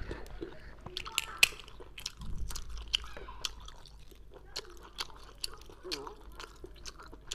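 Close-miked eating sounds: irregular sharp clicks as cooked sea snail shells are pried apart by hand, mixed with wet chewing and smacking.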